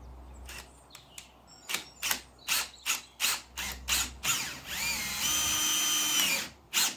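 Cordless Makita drill-driver driving a screw through the door sill: a string of short trigger pulses, then the motor whines up to speed and runs steadily for about a second and a half before stopping, and one last short pulse near the end.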